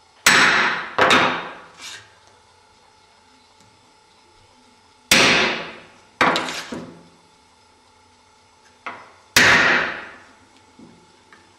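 A hammer striking a wood chisel to square the router-rounded notches in a wooden wing rib. About eight sharp blows come in three bunches of two or three, and each rings out briefly.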